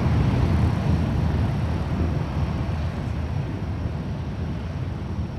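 Aircraft engine noise: a steady low rumble that fades slightly over a few seconds.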